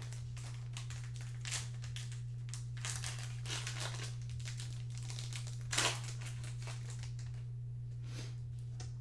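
Foil wrapper of a Prizm football card pack crinkling as it is handled and opened by hand, in a run of irregular rustles, the loudest about six seconds in. A steady low hum runs underneath.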